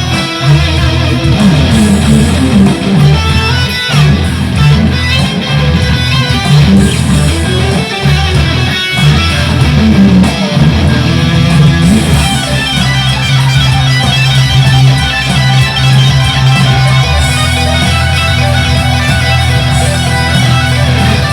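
Electric guitar, a Fender Stratocaster played through a Boss Katana 100 amplifier, improvising a run of notes with bends, then settling into held low notes about halfway through.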